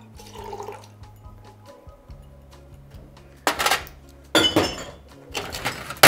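Juice trickling briefly into a steel Boston shaker tin, then steel shaker tins and ice cubes clattering in several loud, sudden bursts in the second half, with a sharp knock near the end. Soft background music runs underneath.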